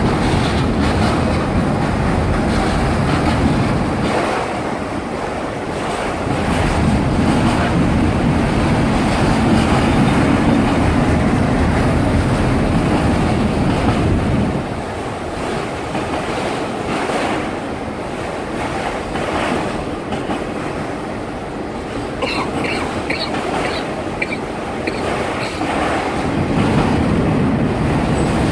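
Autorack freight cars rolling past: a heavy, continuous rumble of steel wheels on rail that swells and eases as the cars go by, with clatter at the rail joints. A few brief high wheel squeals come about three-quarters of the way through.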